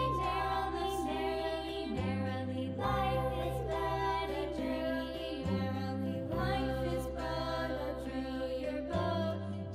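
Background children's music: a sung melody over sustained low chords that change every few seconds.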